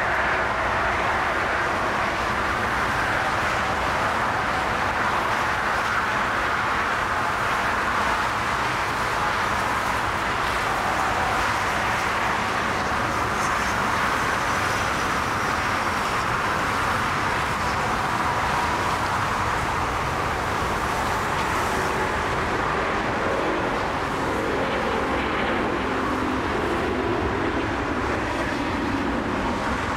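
Four Rolls-Royce Trent 900 turbofans of an Airbus A380 at takeoff thrust: steady, loud jet engine noise as the aircraft rolls, lifts off and climbs.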